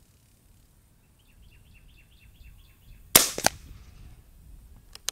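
Ataman M2R .22 regulated PCP air rifle firing one shot about three seconds in: a single sharp crack, then a fainter second crack a moment later. Before the shot a bird chirps a quick run of about ten short notes, and a light click comes near the end.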